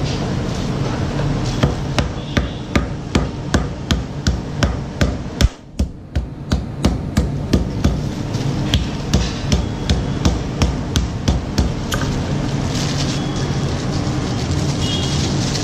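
Steady rhythmic knocking, about two to three blows a second, like hammering, over a low hum; the knocks stop about twelve seconds in.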